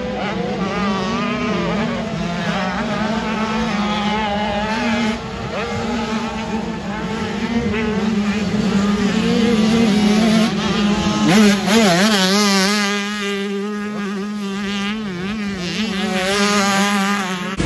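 Motocross bike engines on track during a race session, revving up and down in quick waves as riders throttle on and off. The loudest moment comes about two thirds of the way through, as a bike runs close.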